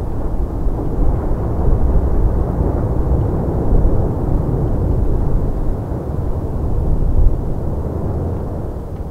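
Lava fountain of the Fagradalsfjall eruption: a loud, deep, continuous rumble, with a brief louder surge about seven seconds in.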